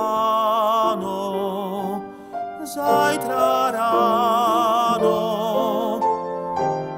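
Male classical singer singing a Slovak folk song with wide vibrato on long held notes, accompanied by piano; the vocal line breaks briefly for a breath a little over two seconds in.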